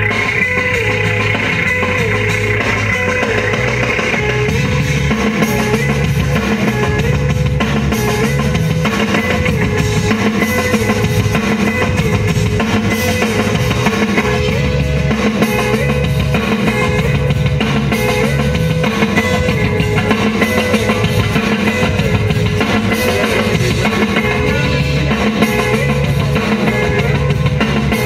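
Rock-style music with a steady drum-kit beat, bass and guitar.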